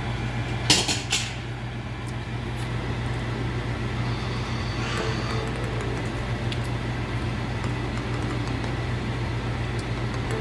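A pancake frying in butter in a nonstick pan: faint crackly sizzling over a steady low hum, with two sharp knocks about a second in.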